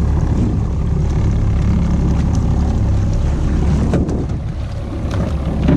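A 90 hp Evinrude E-TEC two-stroke outboard running steadily at trolling speed, a constant low rumble, with wind and water noise around it.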